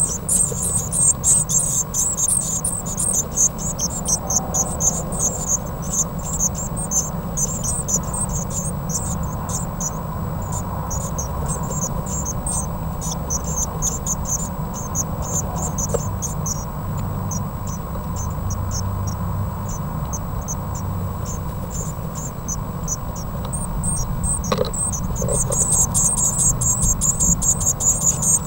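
Blue tit nestlings begging: a rapid, high-pitched chorus of squeaking calls that thins out in the middle and swells again near the end, as a parent brings food. A steady low hum runs underneath.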